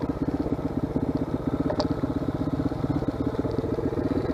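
Off-road motorcycle engine running steadily with an even, rapid pulsing beat, getting a little louder toward the end. A brief click sounds about two seconds in.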